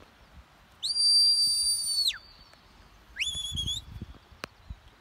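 Whistled commands to a herding sheepdog. A long, steady, high whistle starts about a second in, sliding up at its start and down at its end. A shorter whistle follows about three seconds in; it rises sharply and then holds.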